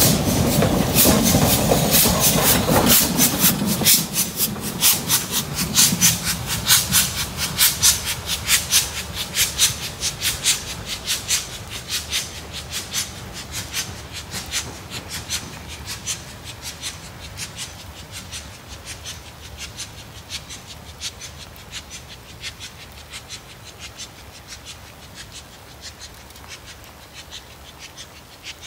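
Steam-hauled train headed by LMS Black Five 45212 passing: a loud rumble for the first few seconds, then a steady clicking of wheels over the rail joints that slowly fades as the train moves away.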